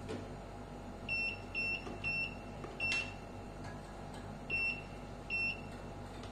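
Key-press beeps from a Smart DPU milk-collection data processor as its keypad is pressed: about six short, high beeps at uneven intervals, with a faint click of the keys.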